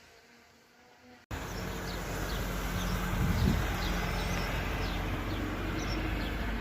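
About a second of quiet, then an abrupt cut to a loud outdoor ambience: a steady rushing noise with small birds chirping repeatedly over it.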